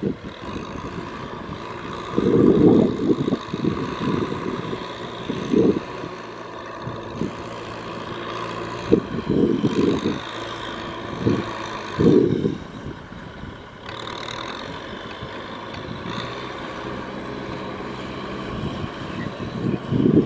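Tractor engine running steadily under load, with irregular loud low bangs and rumbles coming and going over its drone.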